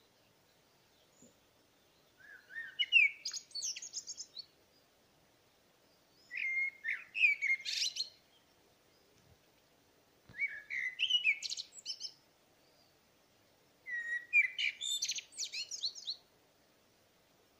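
A songbird singing: four separate song phrases of about two seconds each, spaced about four seconds apart, each opening with lower whistled notes and running up into a quick jumble of high notes.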